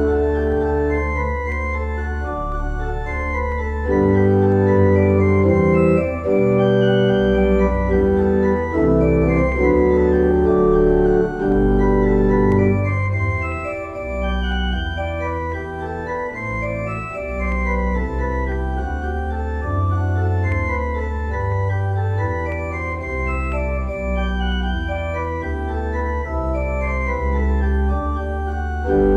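Organ playing a slow piece in held chords, with deep sustained bass notes beneath that change every second or so.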